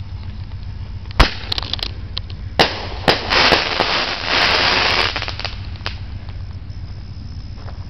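Consumer aerial firework shell going off: a sharp bang about a second in, a second bang about a second and a half later, then about two seconds of dense crackling from the crackling stars, and one more pop shortly after.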